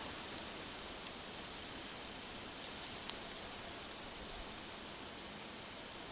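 Steady outdoor hiss, with a short burst of crackling rustle about three seconds in.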